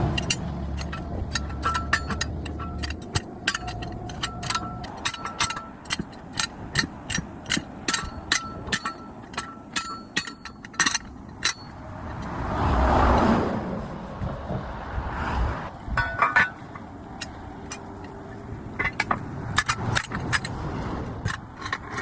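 Metal tools clinking and tapping on truck wheel parts: many sharp metallic clicks in quick succession, some ringing briefly. A vehicle passes about halfway through, and a few more clinks follow near the end.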